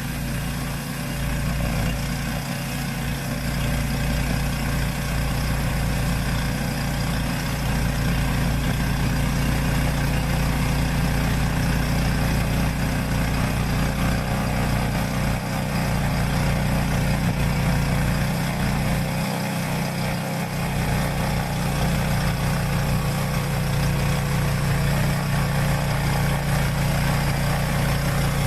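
Yamaha YT-1070 snowblower's engine running steadily.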